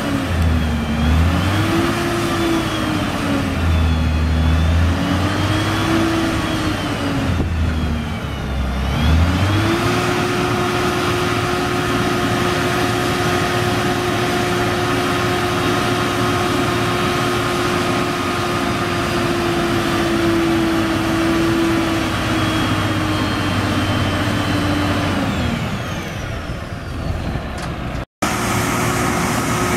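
Cummins N14 diesel engine of a crane truck running under hydraulic load as the telescoping crane boom is worked. Its pitch rises and falls several times over the first nine seconds, then holds steady and higher for a long stretch before dropping back near the end.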